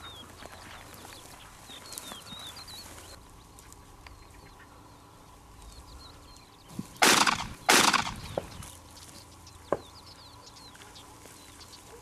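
Two shotgun blasts in quick succession, less than a second apart, about seven seconds in, fired at a quail flushed ahead of a pointing dog. Faint bird chirps run underneath.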